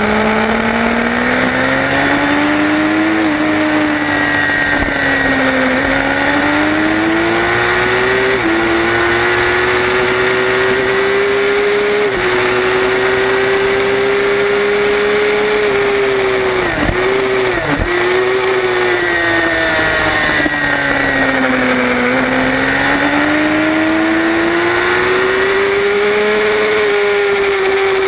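A racing sport motorcycle's engine at high revs, recorded onboard. It climbs in pitch and steps down at each upshift along the straight. About two-thirds of the way through it falls away under braking and downshifting for a corner, with two short throttle cuts, then rises again as the bike accelerates out.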